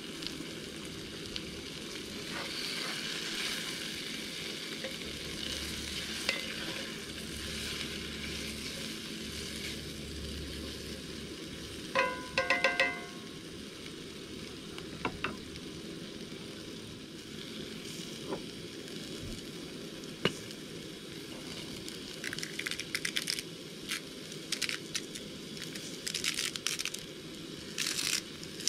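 Vegetables frying in a cast iron skillet on a gas camping stove: a steady sizzle while they are stirred. A short run of ringing metallic clinks comes about twelve seconds in, and quick clicks are scattered through the last several seconds.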